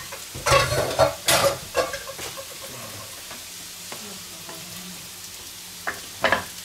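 Potatoes frying in a pan give a steady sizzling hiss. Over it come loud scraping and knocking bursts in the first two seconds, and two sharp scrapes near the end as a wooden spatula works against the clay Römertopf to free the meatloaf.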